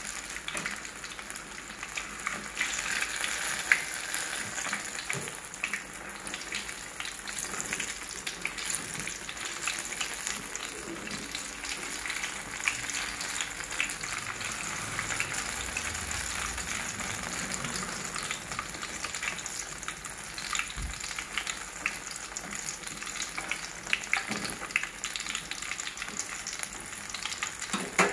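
Battered banana fritters deep-frying in hot oil in a wok: a steady sizzle with frequent small crackles.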